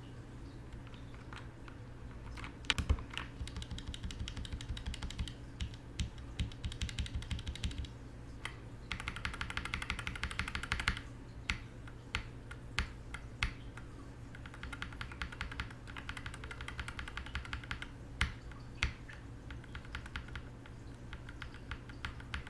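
Typing on a mechanical keyboard fitted with lubed and filmed linear switches: Durock Linears at first, then Gateron Black Inks from about nine seconds in. Irregular keystrokes with runs of rapid typing and a few louder single presses.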